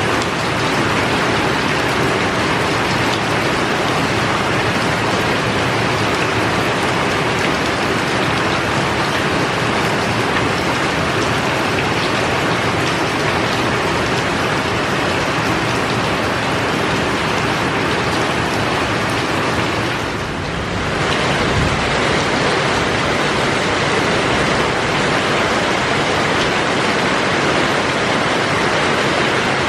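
Heavy rain pouring down steadily as a dense hiss, briefly softer about two-thirds of the way in.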